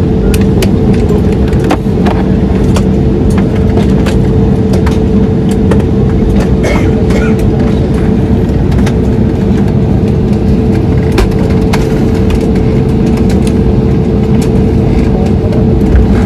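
Loud, steady vehicle engine drone with two steady hum tones, and frequent light rattles and clicks throughout.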